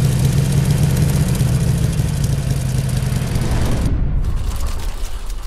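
Motorcycle engine running steadily at a fast idle; about four seconds in the sharper upper part of the sound falls away and it dies down to a low rumble.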